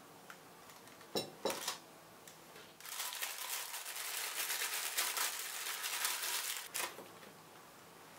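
Two sharp clinks about a second in, then thin plastic film crinkling for about four seconds as it is lifted from a drinking glass, ending in a knock.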